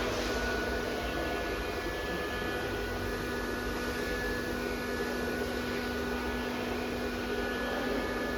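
Automatic nesting CNC router running steadily: a constant machine noise with several steady whining tones.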